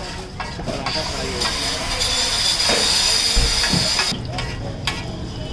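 Mughlai paratha sizzling in hot oil on a flat tawa (griddle). A loud, steady hiss rises about a second in and cuts off suddenly about three seconds later.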